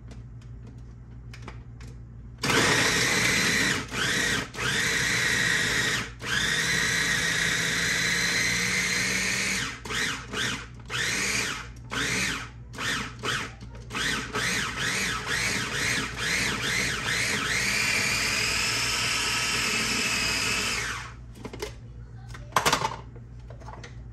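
Small electric food chopper's motor whirring as it chops celery and onion. It runs in long stretches and a run of short pulses, its pitch climbing each time it restarts, and stops about 21 seconds in. A couple of sharp clicks follow.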